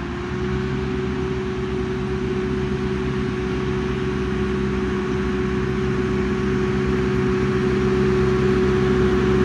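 John Deere tractor engine running steadily under load while pulling a round baler along a hay row, with a constant drone and a strong steady hum. It grows gradually louder as the tractor draws closer.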